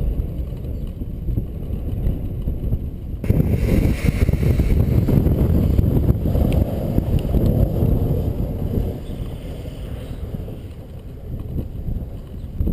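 Storm wind buffeting the microphone as a low rumble. A stronger gust comes in suddenly about three seconds in and eases off near the end.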